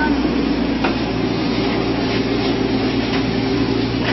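Yanmar mini excavator's diesel engine running steadily under hydraulic load as the machine lowers itself off a truck bed on its arm, with a few faint knocks from the machine about a second in and again a couple of times later.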